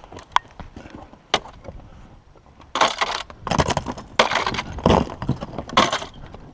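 Snow shovel scraping and chopping into heavy, packed snow in five strokes of about half a second each, after a couple of light knocks.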